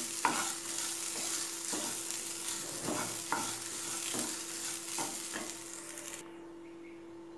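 Wooden spatula stirring grated coconut and a tempering of dals, cashews and curry leaves frying in oil in a nonstick pan: a steady sizzle with a scraping stroke about once a second. The sizzle cuts off suddenly about six seconds in, leaving only a faint steady low hum.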